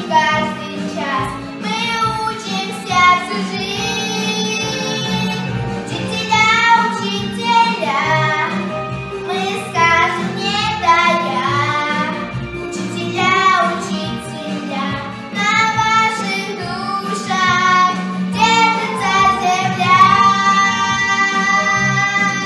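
A young girl singing a song solo over instrumental accompaniment, holding long notes near the end.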